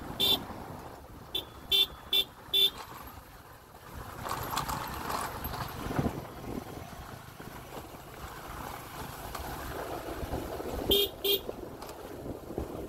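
Motorcycle horn giving short beeps: a pair at the start, a quick run of four a second later, and another pair near the end. Under them, a steady rumble of the moving motorbike's engine and wind.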